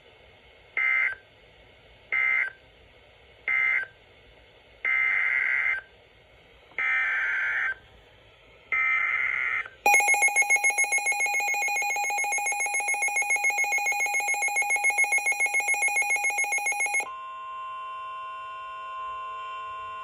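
NOAA weather radio receiving Emergency Alert System SAME data: three short warbling data bursts, the end-of-message code, then three longer bursts, the header of the next alert. About ten seconds in, the radio's loud, rapidly pulsing alert beep sounds for about seven seconds. It gives way to a steady, quieter warning tone near the end.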